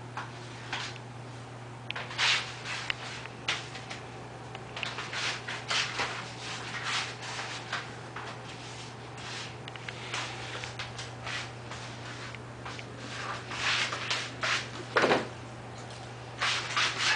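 A small puppy scuffling and scrabbling on a tiled floor while it tugs at a fuzzy slipper: irregular short scrapes and rubs, busiest in the middle and again near the end, over a steady low hum.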